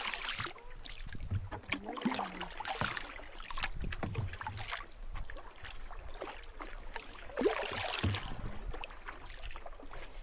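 Kayak paddle strokes splashing and dripping in the water, coming every second or two.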